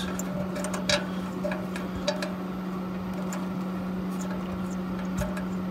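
Light clicks and short scrapes of a stack flue sensor being turned by hand in its threaded port on a pool heater's exhaust, over a steady low hum.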